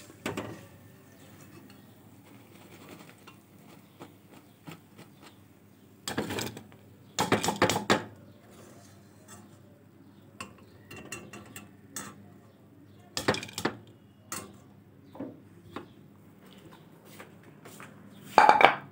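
Metal wire skimmer knocking and clinking against a ceramic bowl as fried fritters are tipped into it, in scattered clusters, the loudest in the middle and near the end.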